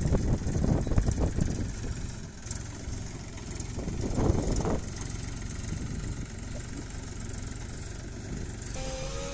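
Mahindra 275 DI TU XP Plus tractor's three-cylinder diesel engine running at low revs, louder for a second or so at the start and again about four seconds in.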